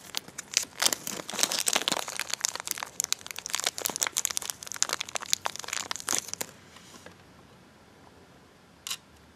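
Dense crinkling and clicking of hands picking through small screws, for about six and a half seconds, then quiet apart from one short click near the end.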